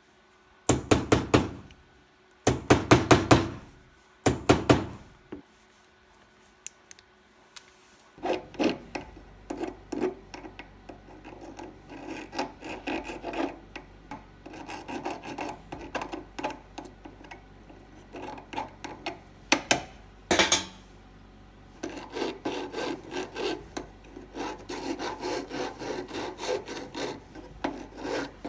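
A hand file rasping back and forth on a small silver workpiece: three short bursts of quick strokes, then steady filing strokes from about eight seconds in, with one sharper, louder burst about twenty seconds in.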